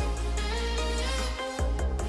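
Background music with a steady bass line and melodic notes changing every fraction of a second.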